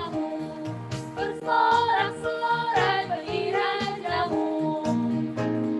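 Sunday school worship song sung to an instrumental backing track, with a steady pulsing bass under the voices.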